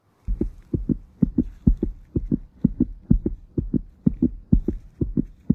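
Heartbeat sound effect: steady paired low thumps, about two beats a second.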